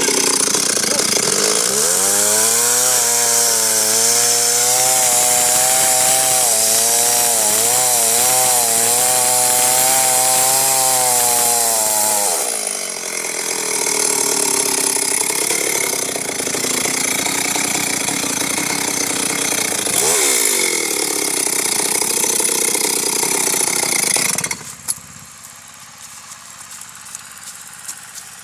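Two-stroke chainsaw running hard while cutting through a big tree, its engine note wavering up and down under load, then changing pitch as the throttle varies. About twenty-five seconds in it falls away suddenly to a much quieter level.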